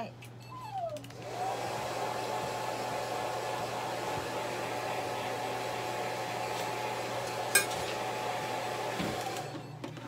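Handheld hair dryer drying a Shih Tzu's coat: it switches on about a second in, its motor spinning up to a steady rush of air with a steady whine, and winds down near the end. A sharp click about three quarters of the way through.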